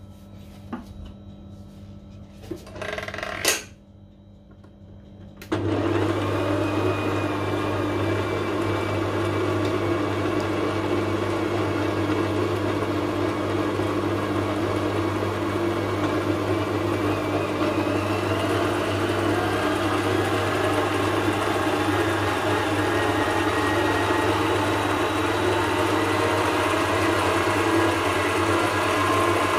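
Kenwood Chef stand mixer switched on about five seconds in, after a few small clicks. Its motor then runs steadily with a low hum while the balloon whisk beats the mixture in the steel bowl.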